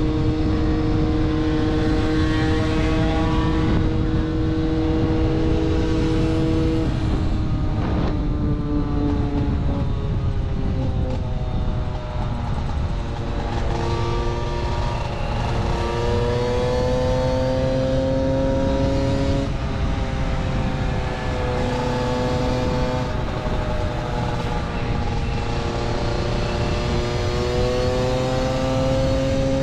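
Small 50cc two-stroke moped engines running hard together. The near engine holds a steady note for the first several seconds. After that several engine notes rise and fall against one another as the pack changes speed, with wind rumble on the microphone throughout.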